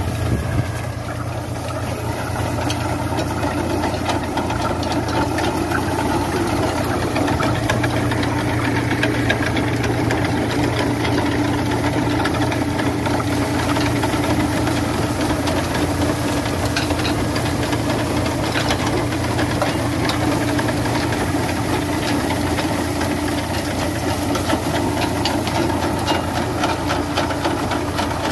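Tractor engine running steadily under load while pulling a potato digger, with a constant clatter and rattle from the digger working through the soil.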